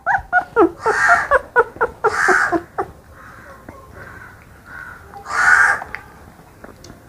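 Beagle puppy squeaking and whimpering in quick short cries over the first few seconds as liquid dewormer is syringed into its cheek. Three harsh cawing calls come about a second in, about two seconds in and past the five-second mark, and it is quieter after about three seconds.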